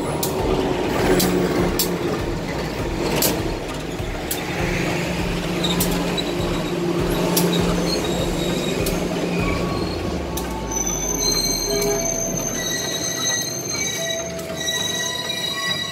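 A passenger train rolling into the station with knocks from its wheels and a low rumble. About eleven seconds in, a brake squeal sets in at several pitches as the train draws to a stop and the rumble dies away.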